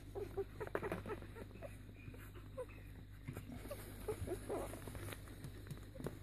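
Nine-day-old beagle puppies nursing from their mother: many short, faint squeaks and grunts with small suckling clicks among them.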